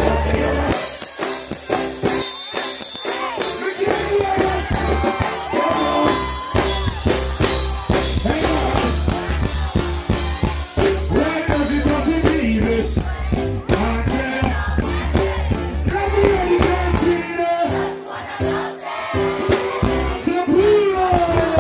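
Live music played loud over a sound system: a voice singing a melody over a heavy, steady bass beat.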